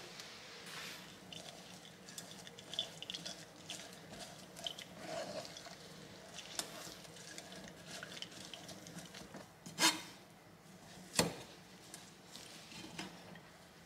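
Blended pandan leaf pulp being pressed and scraped against a fine stainless-steel mesh sieve with a silicone spatula and then a metal spoon, straining the pandan juice out into a glass jug. Two sharp clinks of the spoon on the sieve stand out near the end, a little over a second apart.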